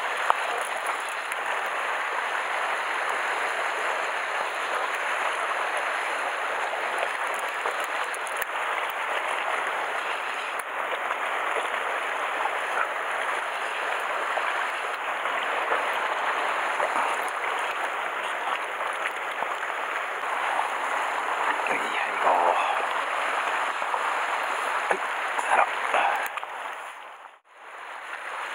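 Surf washing and splashing over shore rocks as a steady hiss of moving seawater. It drops out briefly near the end.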